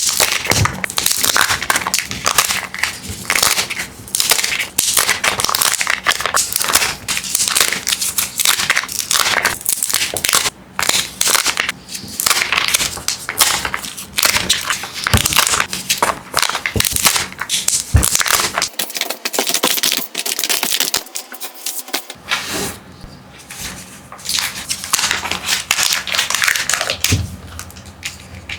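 Plastic-film Kinder Joy wrappers crinkling and tearing as they are handled and pulled open, a continuous run of sharp crackles that thins out in the last few seconds.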